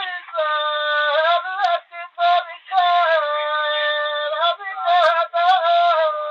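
Bagheli birha folk song: one voice singing long, high held notes that bend at the ends of phrases, with short breaks between phrases.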